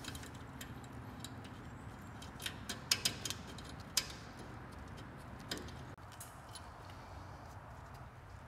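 Small metal clicks and clinks as a bolt is started by hand into the mounting bracket of a slip-on motorcycle muffler; a handful of sharp ticks come in the middle, over a faint steady background.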